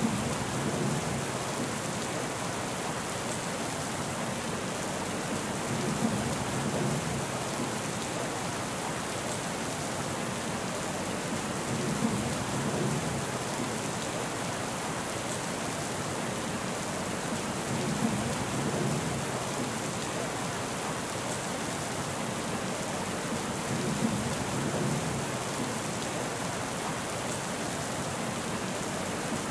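Steady rain falling, an even hiss, with a short low rumble of thunder about every six seconds.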